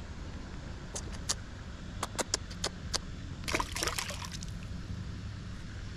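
Small splashes in pond water where the fishing line meets the surface, densest about three and a half seconds in, after a few scattered sharp clicks, over a steady low rumble.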